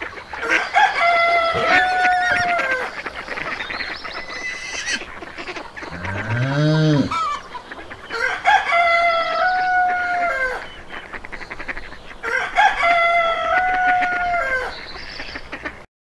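A rooster crowing three times, each a long multi-note cock-a-doodle-doo. About six seconds in there is a shorter, lower call that rises and then falls. The sound cuts off suddenly just before the end.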